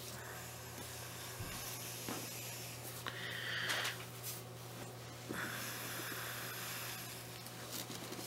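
Soft rustling of cloth and handling noise as a doll in fabric clothes is lifted and laid on a pillow, in a few short patches, over a steady low hum.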